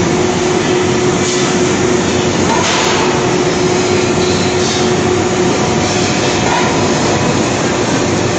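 QPW40 shot blasting machine for gas cylinders running: a loud, steady rush of blasting noise with a constant hum as cylinders pass through the blast chamber on its roller conveyor.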